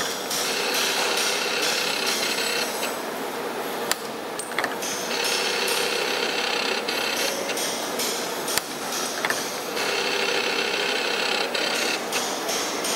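Simco CNC-620R CNC spring-forming machine running its program: a steady mechanical clatter with sharp clicks and stretches of high whine. The pattern repeats every five or six seconds, one finished part per cycle.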